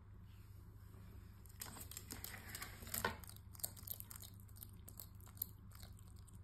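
Bearded dragon biting and chewing a feeder worm: a run of small crunches and clicks that starts about one and a half seconds in, with one sharp snap around three seconds.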